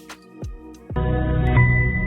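Background music: sparse deep thumps and light clicks, then about a second in a louder, fuller sustained chord comes in.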